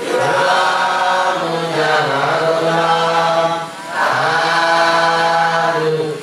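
Chanting in long phrases on a low, steady pitch, with short breaks about every two seconds.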